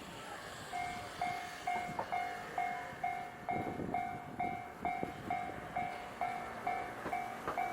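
Japanese level-crossing warning bell starting to ring a little under a second in, a ding repeating about twice a second. A short low rumble sounds midway through.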